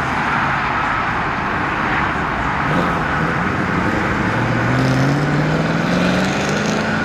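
A car engine accelerating, its pitch rising steadily through the second half, over a steady wash of road traffic noise.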